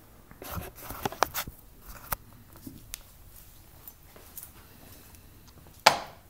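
Handling noise from a camera being picked up and carried: a scatter of sharp clicks and knocks in the first two seconds, a quiet stretch, then one louder knock near the end. No drill is running.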